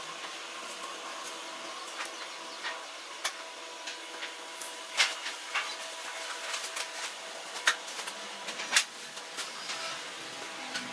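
Scattered light clicks and taps of a cloth tape measure and pencil being handled against a turned wooden vase, with a few sharper clicks in the middle, over a steady faint hum.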